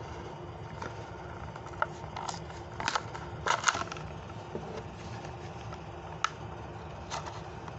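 Hot Wheels blister card being opened by hand: the clear plastic blister crinkles and snaps and the cardboard backing tears. It comes as scattered short crackles, bunched most thickly around three to four seconds in.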